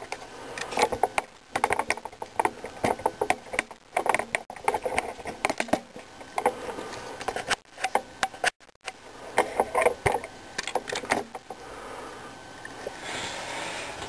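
Irregular clicking and rattling of small hard objects being handled, with a short break a little past halfway and a softer hiss near the end.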